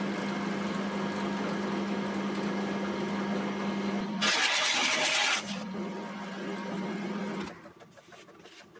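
A benchtop pillar drill runs with a steady hum. About four seconds in, the bit bores into a plywood board with a loud cutting noise lasting about a second. The motor then runs on until its hum stops near the end.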